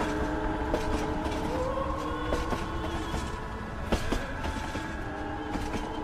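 Train running on rails: a steady low rumble with scattered sharp clicks, under several held tones that step up in pitch now and then.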